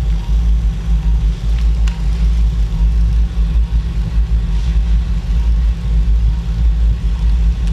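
A steady, loud, low rumble from equipment running during arthroscopic shoulder surgery, with a few faint ticks above it.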